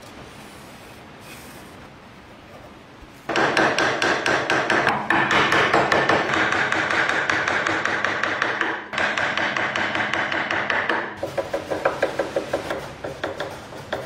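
Hand tool scraping rapidly back and forth on a metal lock part. It starts suddenly about three seconds in and breaks off briefly twice. Near the end it slows to separate strokes, about three a second.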